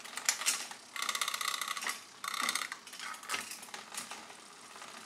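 Bicycle drivetrain worked by hand: two runs of rapid, even ratcheting clicks from the rear freewheel, the first about a second long starting about a second in and the second shorter one just after two seconds in, with a few single sharp clicks and knocks from the chain and front derailleur around them.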